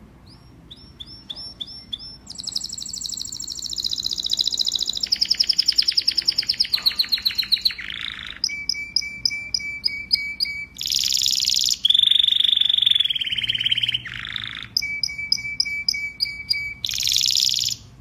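Domestic canary singing a loud, vigorous song of rapid trills and rolls, switching to a new phrase every second or two with brief pauses between phrases.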